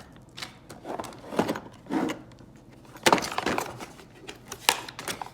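Quick release steering hub parts and their packaging being handled: a series of irregular knocks and light clatter, the loudest a little after three seconds in.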